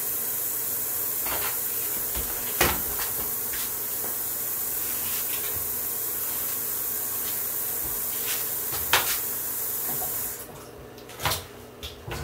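Sink tap running steadily while hands are washed, with a couple of sharp knocks. The water shuts off about ten seconds in, followed by a few light clatters.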